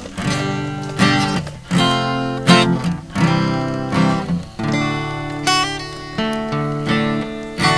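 Acoustic guitar strumming chords, about one strum every three-quarters of a second, each chord ringing on until the next; it breaks off abruptly at the very end.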